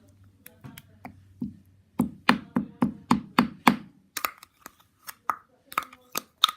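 Slime being worked by hand with lotion to soften it: a few soft sticky clicks at first, then from about two seconds in a quick run of sharp wet slaps, about three a second, followed by scattered pops and slaps.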